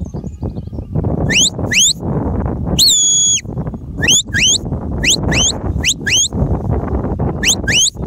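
Shepherd's sheepdog whistle blown as commands to a working sheepdog: short rising notes, mostly in quick pairs, repeated again and again, with one longer flat note about three seconds in. A rumble of wind on the microphone runs underneath.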